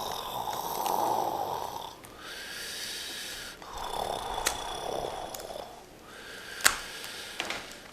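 A sealed cardboard box of trading cards being torn and pried open: two long rasping tearing strokes, then a few sharp clicks and snaps, one loud snap about two thirds of the way in.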